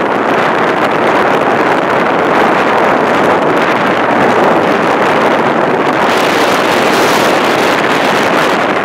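Loud, steady rush of wind on the microphone from a moving vehicle, mixed with road noise, turning hissier for a couple of seconds about six seconds in.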